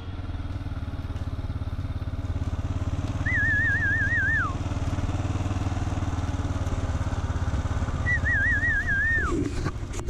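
Farm motorbike engine running steadily at low speed with an even pulsing hum. Twice, a warbling whistle wavers and then slides down at its end.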